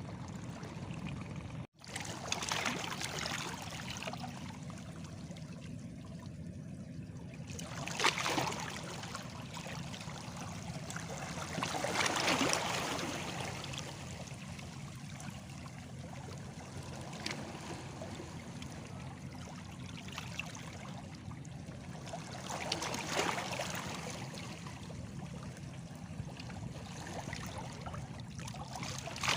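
Small sea waves lapping and washing against stones, with a steady wash of water broken every few seconds by a louder surge as a wave breaks. The sound drops out completely for a moment about two seconds in.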